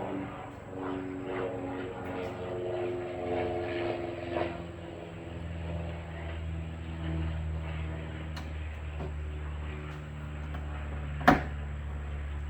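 A steady low mechanical drone, like a distant engine, with a few faint clicks. A single sharp plastic snap near the end, as a trim-panel push-rivet clip is pressed home into its hole.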